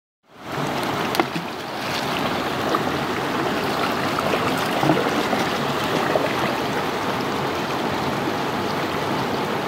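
Shallow rocky river rushing steadily over stones, with a few brief splashes as a German shepherd paws and noses in the water.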